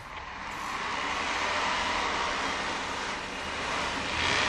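Off-road 4x4s accelerating hard off a drag-race start: a dense, steady engine-and-tyre noise that builds over the first second and then holds.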